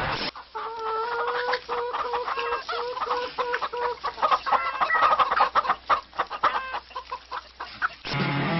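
Repeated short, choppy animal calls with a pitched ring to them, cutting in abruptly just after the start and stopping abruptly near the end.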